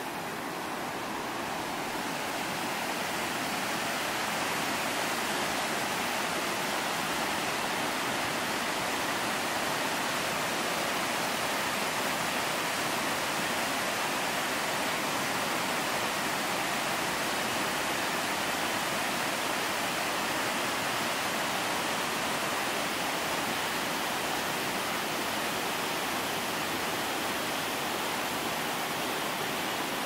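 The Ohanapecosh River rushing over rocks and shallow rapids: a steady, even rush of white water, growing a little louder over the first few seconds.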